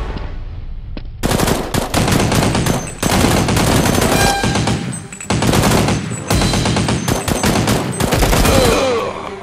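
Rapid automatic gunfire sound effects in several long bursts, starting about a second in with short breaks between bursts, dubbed over a toy-blaster battle.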